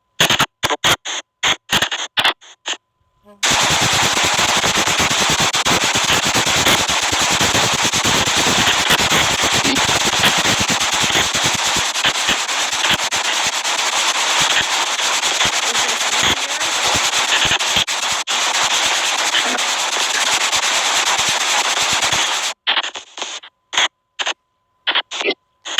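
SP White Noise Box spirit-box app playing: short choppy bursts of static for the first few seconds, then a steady loud hiss of white noise with crackle, which breaks back into choppy bursts near the end.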